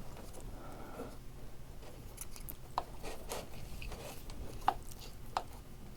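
Light handling noises of the steering line and small rudder parts: soft rustling with a few sharp little clicks, the loudest about three seconds in and twice more near the end.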